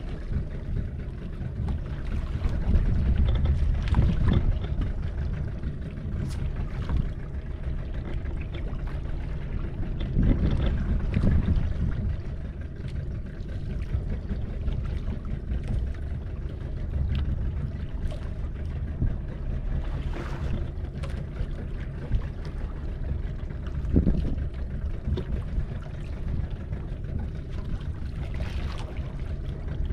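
Open-sea ambience on a small fishing boat: a steady low rumble of wind and water that swells louder every few seconds.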